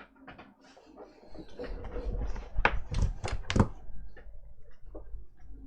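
Tools and parts being handled on a repair bench: a run of clicks and knocks, with several sharp ones close together near the middle, over a low rumble.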